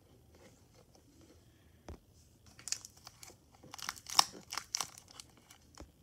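Small plastic chip bag crinkling as it is handled: a quick run of sharp crackles about halfway in, loudest just after four seconds, following a single soft thump near two seconds.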